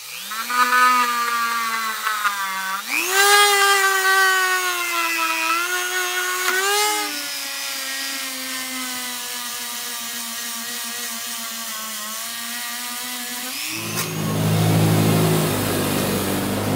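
An electric power tool's motor running with a steady whine, rising in pitch about three seconds in and dropping back a few seconds later. Near the end it gives way to a lower, rougher mechanical buzz.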